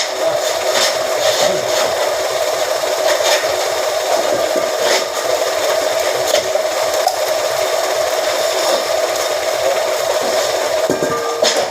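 A press machine's motor running with a steady hum, with scattered short clicks and knocks from the metalwork.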